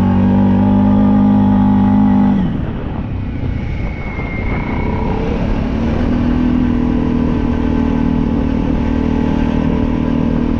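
Small off-road vehicle engine running at steady revs, dropping off sharply about two seconds in, then picking back up about six seconds in and holding steady.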